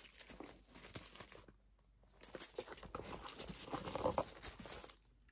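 White tissue paper rustling and crinkling as it is handled and unfolded from around the items in a gift box. It comes in irregular bouts, with a short pause about a second and a half in.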